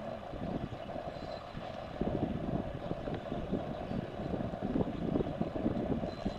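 Wind buffeting the microphone in uneven low gusts, getting stronger about two seconds in, over a steady hum.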